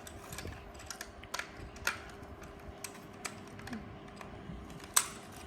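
Scattered light clicks and taps of plastic Lego Duplo pieces being handled and fitted together, with a sharper click about five seconds in, over a faint steady hum.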